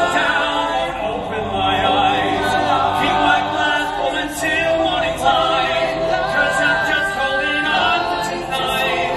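A group of men singing together in harmony on stage.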